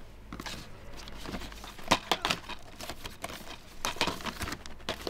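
Plastic DVD cases being put into a plastic shopping bag: the bag rustles and crinkles, with a string of sharp clacks as cases knock together, the loudest a little under two seconds in.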